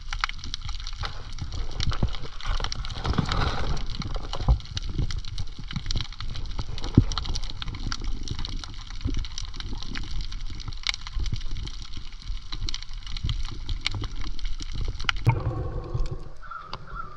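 Rock-pool water sloshing and gurgling close to the microphone as a person swims in it, with many small clicks and knocks throughout; the sound changes near the end.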